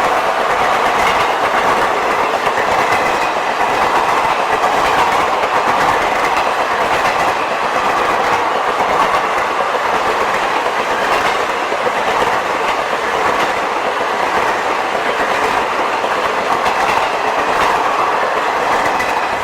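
Passenger coaches of a long express train rolling past close by: a steady, loud rush of wheel and track noise, with wheels clicking over rail joints.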